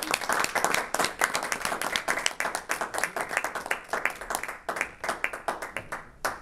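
A small group applauding by hand, the clapping thinning out over the last couple of seconds and ending with one last clap.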